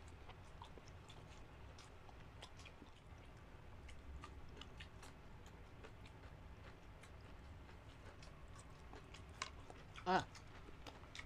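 Faint, close-up chewing with small wet mouth clicks of people eating. About ten seconds in comes one short, louder voice sound.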